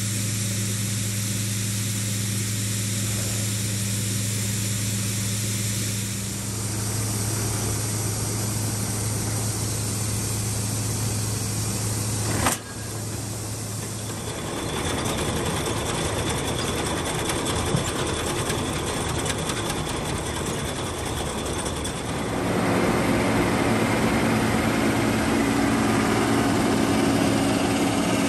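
Farm machinery engines running steadily, changing abruptly in level and tone several times. First a feed truck runs with a steady low hum while its box is raised to unload. From about twenty-two seconds in, a tractor runs a pull-type forage chopper, louder and fuller. A single sharp click comes about twelve and a half seconds in.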